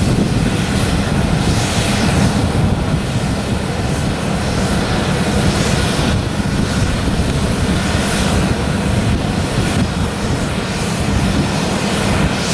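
Jet airliner engines running on the runway, heard from a distance as a steady, unbroken rumbling noise, strongest in the low end.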